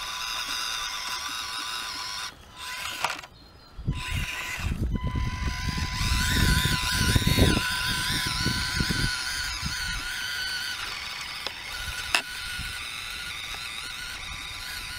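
Small electric motor and gear train of an Axial SCX24 micro crawler whining as it drives, with low knocks and thumps. The sound breaks off briefly twice, about two to four seconds in.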